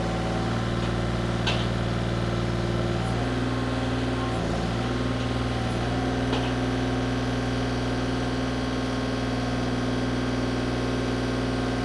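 A baler's Isuzu 34 hp diesel engine running steadily and driving its hydraulic piston pump while the cylinder swings the bale-chamber doors open. About three seconds in, the pitch of the hum shifts and then holds steady.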